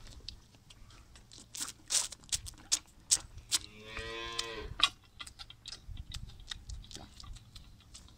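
A calf sucking at a nipple feeding bottle, with a run of sharp wet smacks and clicks. One short moo comes from cattle about four seconds in.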